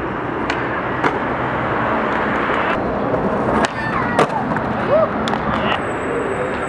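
Skateboard wheels rolling over stone paving, with several sharp clacks from the board, the loudest a pair about half a second apart in the middle, as the skater pops the tail and lands a trick over the stairs.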